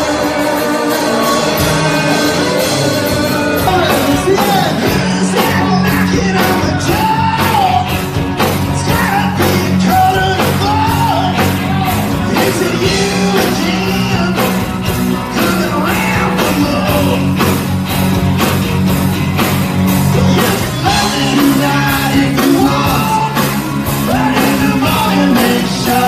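Rock band playing live: a woman singing over electric guitars and a drum kit keeping a steady beat. The singing comes in about four seconds in.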